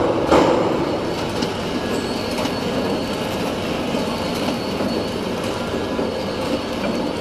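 Flow-wrapping machine packing pens, running with a steady mechanical clatter and hum, a couple of sharper knocks at the very start and a faint high whine.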